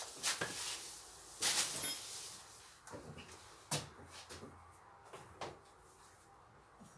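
Rope being threaded through a pulley block: scattered light knocks and clicks with short rustles of the rope, the loudest rustle about a second and a half in.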